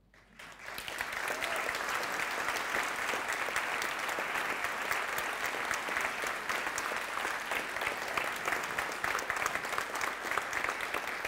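Audience applauding, building up within the first second and then going on steadily.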